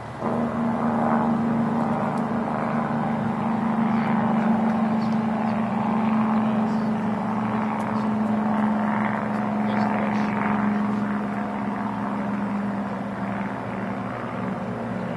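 A steady engine drone, a low hum that starts suddenly, holds, then drops slightly in pitch and fades near the end.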